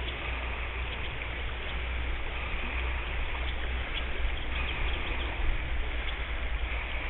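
Water rushing steadily over the stones of a shallow river riffle, with faint splashy ticks and a low constant rumble underneath.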